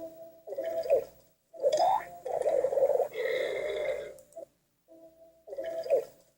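A string of long, drawn-out burps with short silent gaps between them, a few sliding down or up in pitch.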